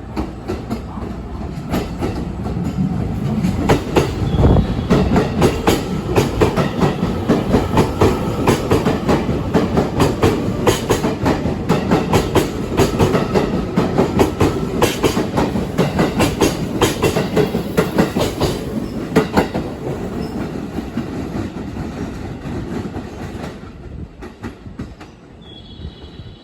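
Electric train running through a station: wheel clatter over rail joints and points builds for a few seconds, stays loud and dense with rapid clicks for about fifteen seconds, then fades away.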